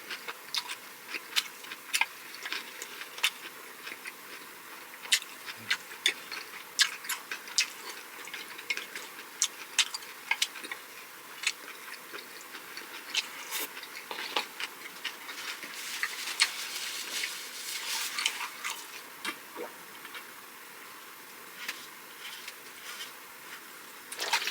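Close-miked eating sounds: irregular sharp wet clicks and smacks of a mouth chewing food, several a second.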